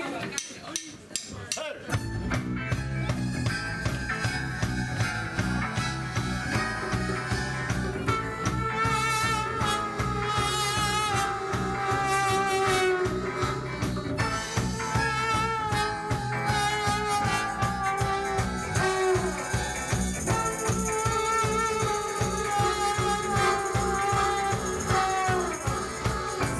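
Live band playing an instrumental passage with electric guitar, drum kit and trombone. The full band comes in about two seconds in, after a few sparse hits.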